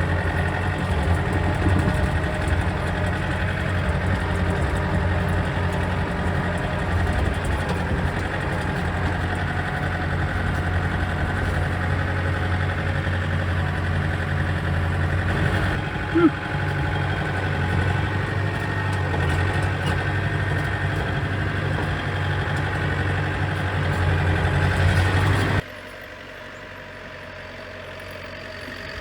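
Tractor engine running steadily while pushing snow. About four seconds before the end the sound drops suddenly and stays much quieter.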